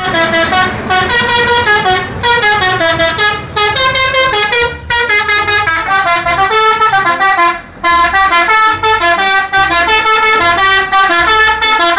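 Multi-tone musical bus horn (a 'telolet' horn) playing a fast melody, its loud notes stepping up and down in pitch, with a few short breaks.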